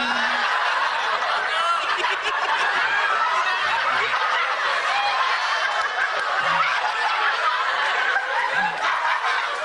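Studio audience laughing, many voices together in one long, steady wave of laughter.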